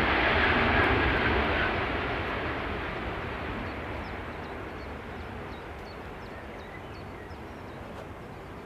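Boeing 737-800's CFM56-7B turbofan engines during the landing rollout: a loud rushing noise that fades steadily from about two seconds in.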